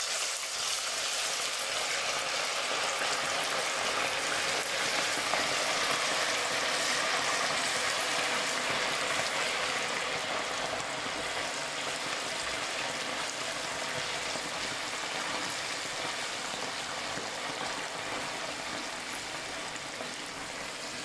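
Toothpick-skewered beef pieces deep-frying in a pan of hot oil: a steady sizzle with bubbling, as the meat goes into the oil and is stirred with chopsticks.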